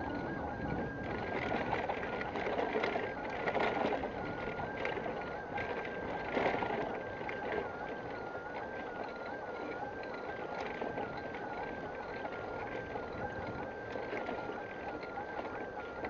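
Bicycle riding along a paved street: a steady noise of tyres rolling and wind on the microphone, with rattles that are louder and more frequent in the first half and settle to a steadier rumble in the second.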